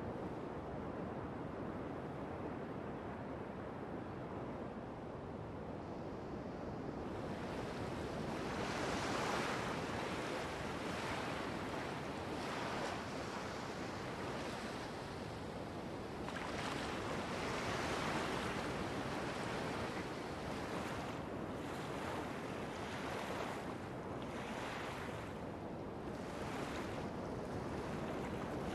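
Sea water and wind: a steady rush of wave noise, with surges of washing and splashing every second or two from about seven seconds in.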